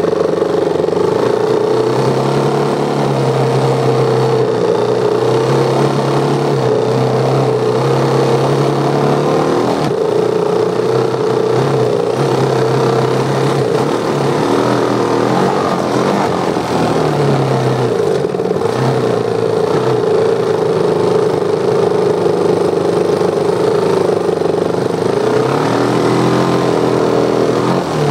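Dirt bike engine running while riding, its pitch rising and falling several times as the throttle opens and closes, recorded close up from a phone mounted on the front of the bike.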